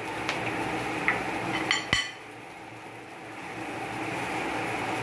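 A few light clinks and taps of a metal measuring spoon and a sauce bottle, over the steady low sizzle of vegetables in a hot wok; the loudest tap comes about two seconds in.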